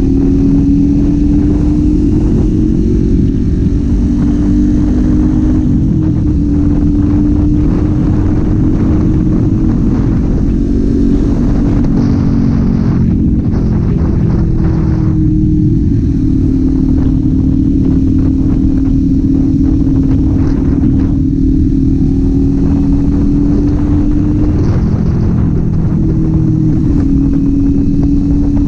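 Kawasaki Z400's parallel-twin engine running at a steady cruise, its pitch dipping and climbing back a few times as the throttle changes, over a steady rushing noise.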